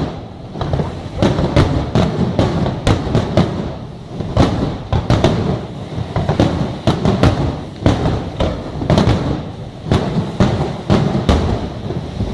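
Fireworks display going off in a dense run of bangs and crackles, several a second, over a continuous low rumble of explosions.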